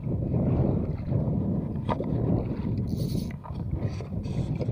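Water sloshing against a small boat's hull with wind rumbling on the microphone, a steady low noise, with a single click about two seconds in and a short hiss about three seconds in.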